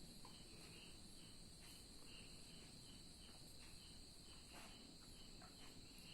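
Near silence with the faint, steady chirring of crickets.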